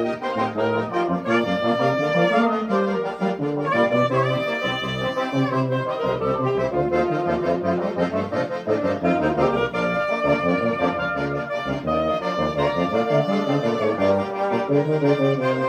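A small band of tuba, trombone, alto saxophone, clarinet and accordion playing a hymn together in held chords that change step by step.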